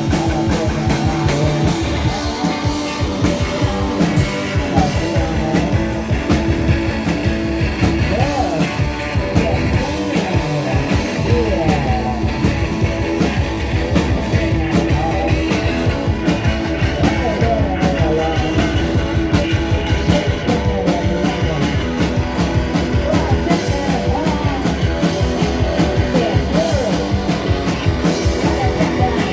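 Live garage-punk rock band playing: electric guitars over a steady drum-kit beat.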